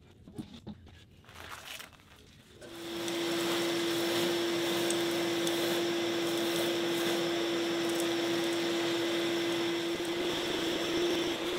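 A few light knocks, then a wet/dry shop vacuum switches on about two and a half seconds in and runs steadily with a constant hum. Its hose nozzle is held in a channel drain grate to suck out standing water.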